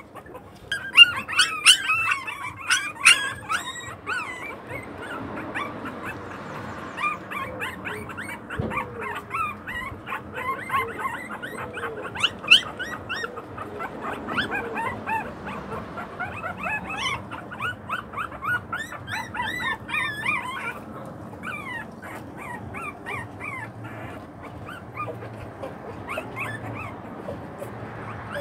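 A litter of young puppies whimpering and squeaking, with many short high cries overlapping throughout. They are loudest in the first few seconds, with another sharp cry about twelve seconds in.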